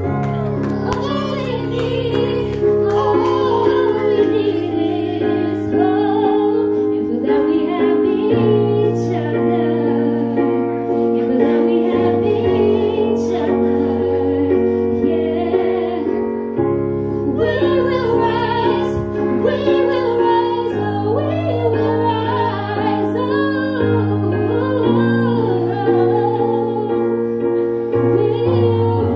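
A woman singing into a microphone over held keyboard chords, the bass note changing every few seconds beneath her wavering melody.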